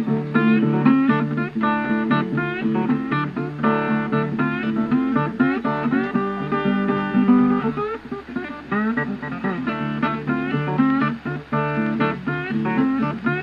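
Background guitar music, plucked notes over a steady bass line.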